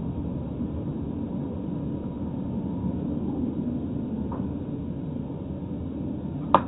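Steady road and tyre rumble of a car driving along a highway, as picked up by a dash camera. A single sharp click just before the end.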